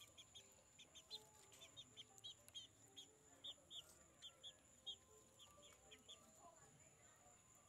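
Young chicken peeping faintly: a run of short high chirps, several a second, that thin out about six seconds in.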